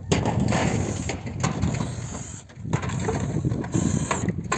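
Thin sheet-metal roofing being worked by hand: the ridge flashing is pulled and scraped and the metal tile sheets rattle underfoot, with a few sharp clicks over a steady low rumble that briefly dips about two and a half seconds in.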